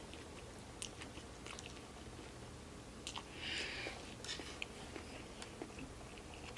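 A person chewing takeout food close to the microphone, with soft, scattered mouth clicks and a short burst of noise a little over three seconds in.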